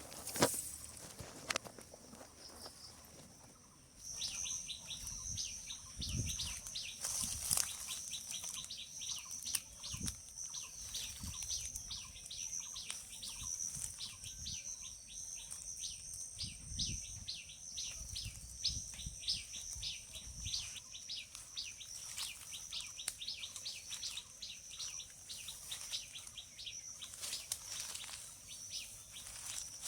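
Outdoor garden ambience: rapid, regular high-pitched chirping, about three a second, over a steady high ringing tone, starting abruptly about four seconds in. There are a few sharp clicks near the start and occasional low rumbles, like wind on the microphone.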